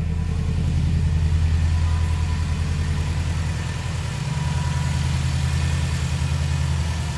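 Subaru's flat-four boxer engine idling steadily through its aftermarket exhaust, a low even hum.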